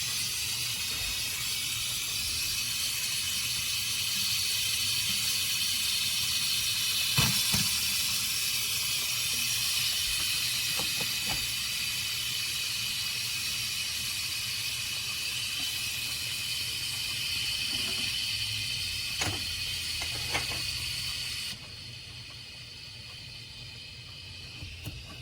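Steam hissing steadily from a 1976 La Pavoni Europiccola lever espresso machine as its boiler comes up to pressure, with a few light knocks; the hiss cuts off suddenly about 21 seconds in.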